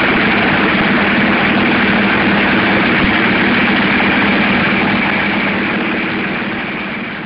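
Piston aircraft engine running on a ground-run stand with its propeller turning: a loud, steady, rough drone with a constant low hum, easing off over the last second or so.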